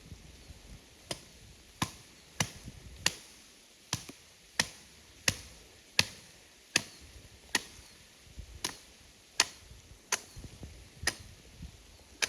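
Wood being chopped: a steady run of sharp blows, about one every two-thirds of a second.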